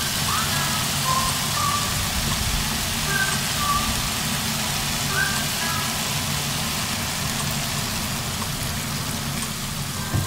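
Background music: a light melody of short, sparse notes over a steady low accompaniment.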